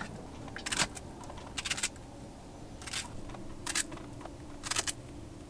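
Quiet food-preparation sounds: a handful of short, crisp clicks and cuts about a second apart, from a knife slicing strawberries and a scoop dishing out cottage cheese.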